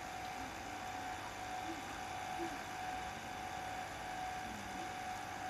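Playback of an old open-reel video tape on a vintage Toshiba GV-201C recorder, heard through a television: a steady hiss with a constant thin tone running through it and a few faint, indistinct sounds.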